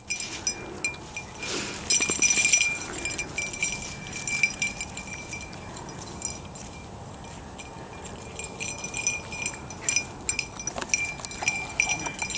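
A small bell on a hunting dog's collar ringing in quick, irregular jingles as the dog moves, with a louder burst of rustling about two seconds in.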